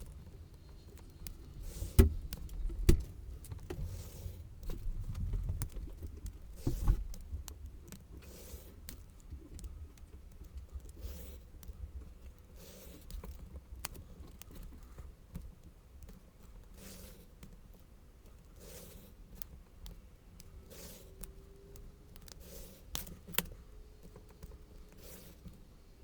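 Sped-up handling and cutting sounds from slitting cardstock with a craft cutter and ruler: a fast scatter of small clicks, taps and scrapes, with a few louder knocks in the first seven seconds.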